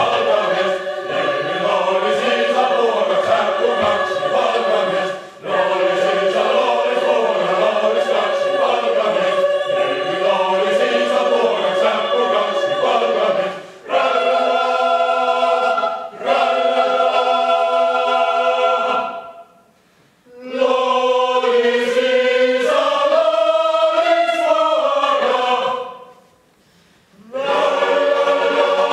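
Mixed choir singing a cappella: for about the first 13 seconds a continuous passage with the low voices wavering up and down in pitch, then sustained chords sung in phrases broken by two short silences.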